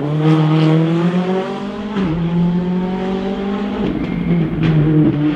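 Rally car engine under hard acceleration, its pitch climbing steadily and stepping down at upshifts at the start and about two seconds in, then falling away near four seconds in.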